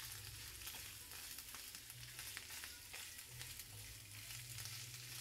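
Chopped chorizo sizzling and crackling in hot oil in a frying pan as it is stirred with a utensil, over a low steady hum.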